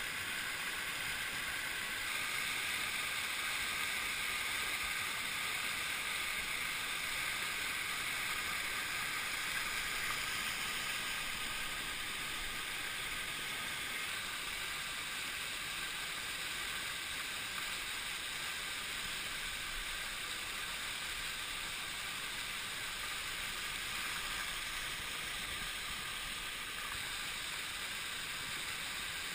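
Whitewater river rapids rushing steadily over boulders, a continuous hiss of churning water.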